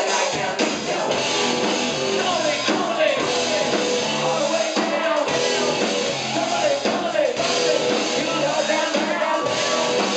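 Live rock band playing a song, with electric guitars, drums and vocals, recorded from within the crowd.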